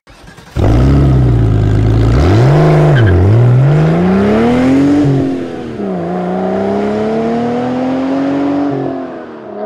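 A car engine starts up loud, blips twice, then accelerates hard through the gears. The pitch climbs, drops at an upshift and climbs again, with a second drop near the end.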